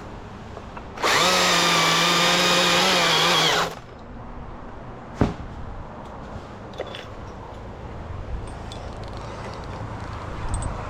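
Two-stroke chainsaw run at high revs for about two and a half seconds, starting about a second in and then cut off abruptly. A single sharp knock follows a couple of seconds later.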